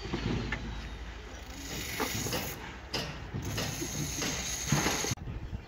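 A few short metallic clinks and knocks of steel rebar being handled and fitted into a column cage, over a steady background hiss.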